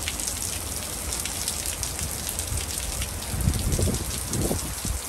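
Heavy rain falling steadily on a lawn, street and pavement, a dense hiss dotted with many small ticks of drops. A low rumble swells briefly about three and a half seconds in.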